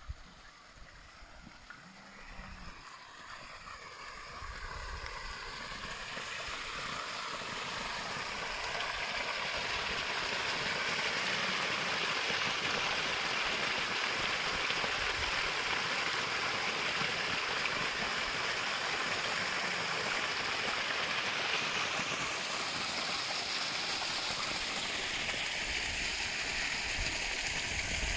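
Water pouring in a small falling stream out of a gap in a dry-stone wall and splashing onto the stones below, a steady rushing splash. It grows louder over the first several seconds and eases slightly near the end.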